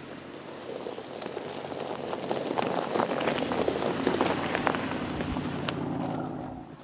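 Aston Martin DBX on a dirt track, its engine running steadily under a dense crackle of tyres crunching over dirt and small stones and brushing through plants. The sound builds to its loudest in the middle and drops off sharply near the end.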